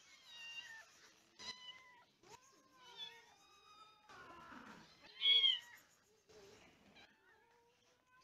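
Kittens meowing: a string of short, high meows, the loudest about five seconds in.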